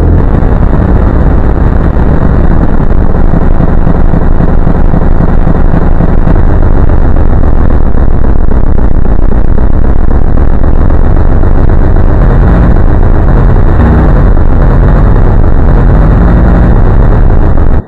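Extremely loud, heavily distorted and clipped rumbling noise, dense and steady, with shifting low bass notes in the last few seconds; it cuts off abruptly at the end.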